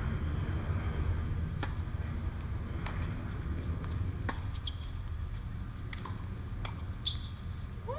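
Tennis ball struck by rackets and bouncing on a hard court during a doubles rally: about six sharp pops, roughly a second or so apart, over a steady low rumble.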